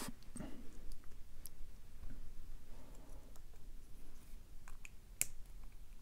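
Small metal clicks and scrapes as a C-clip is worked off the back of a Mul-T-Lock Classic euro profile cylinder's plug with a small tool, with one sharper click about five seconds in.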